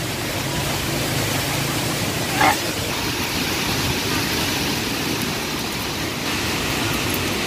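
Typhoon wind and heavy rain making a steady rushing noise, with one brief louder sound about two and a half seconds in.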